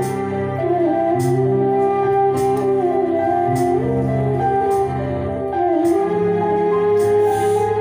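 A small band playing live: electric bass holding long notes and electric guitars, under a melody line that slides between notes, with a percussion hit about every second and a quarter.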